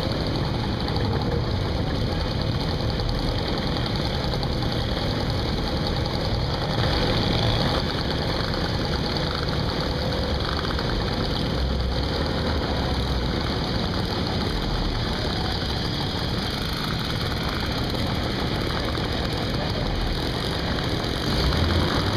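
Several moped and small motorcycle engines idling and running together in a steady mixed drone.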